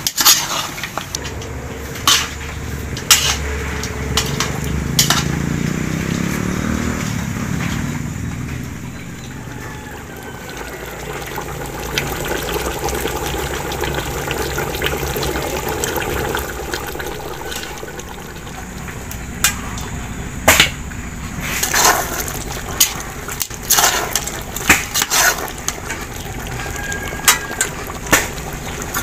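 Liquid poured into a cooking pot, its pitch rising as the pot fills, followed by a steady watery noise with scattered knocks and clinks of cookware that come thickest later on.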